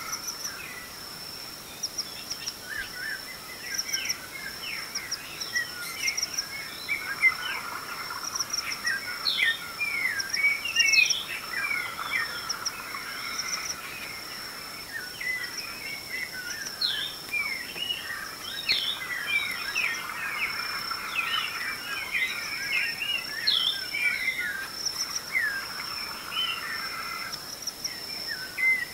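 African dawn chorus: many birds chirping and whistling in quick overlapping calls, over a steady high-pitched insect trill.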